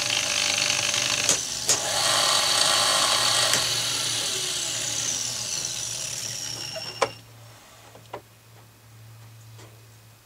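Homemade drill press, driven by a washing-machine motor through a planetary gearbox, running with a loud whine and clatter, then winding down with falling pitch from about a third of the way in and stopping with a click about two-thirds through. A low steady hum remains.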